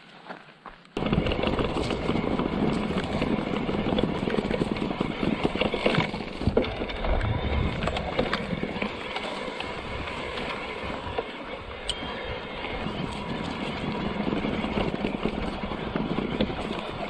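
Mountain bike rolling and rattling over the sleepers and ballast of an overgrown railway track, with a dense run of small knocks and bumps. It starts suddenly about a second in.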